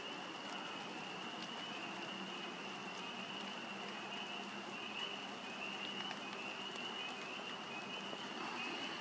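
Light rain falling steadily, with a few faint drop ticks, and a faint high-pitched trill repeating in short pulses underneath.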